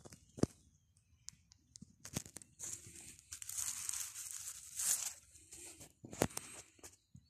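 Dry leaf litter rustling and crinkling close to the microphone, with a few sharp snaps: one about half a second in, one around two seconds, and one about six seconds in. A longer crackling rustle fills the middle.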